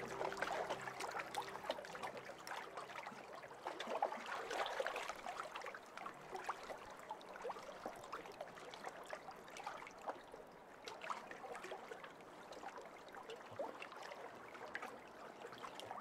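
Gentle water sounds: a soft trickle with many small irregular drips and plinks, a little louder for the first five seconds.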